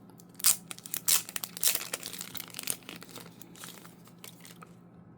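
Packaging crinkling and tearing as a mailed sports card is unwrapped and handled, in a run of sharp rustles that die away after about four seconds.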